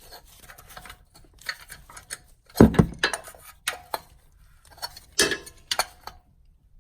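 Irregular light metallic clicks and clinks of tools and the new oil filter being handled and tightened, with two heavier knocks, one a few seconds in and one past the middle.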